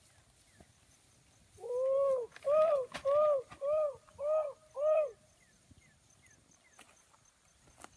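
A bird's cooing call: one longer note followed by five short, evenly spaced coos over about three and a half seconds. Faint short chirps of other birds sound throughout.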